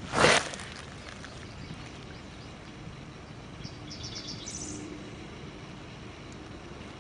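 A short, loud rush of noise right at the start, then steady outdoor background in which a small bird gives a quick run of high chirps about four seconds in.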